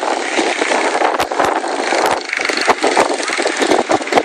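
Quarter midget race cars' small single-cylinder engines running on the track, a steady buzzing drone broken by frequent sharp crackles, with spectators talking over it.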